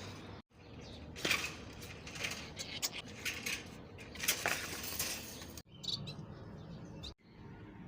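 A parrot cage being cleaned: irregular clinks, rattles and scraping for several seconds, broken off abruptly by a couple of cuts in the audio.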